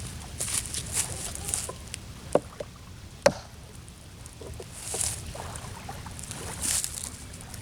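Wood being worked by hand: irregular scraping and rubbing strokes, with two sharp knocks about two and a half and three and a quarter seconds in.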